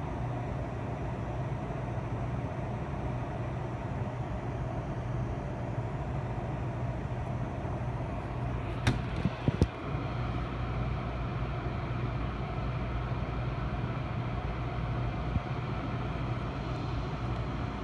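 Steady low rumble of distant city traffic and trains heard from high above the street, with a few sharp clicks about nine seconds in.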